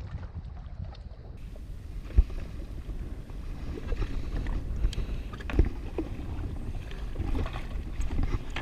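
Wind buffeting the microphone and water moving around a jet ski's hull, with a few short knocks and clicks; the sharpest knock is about two seconds in.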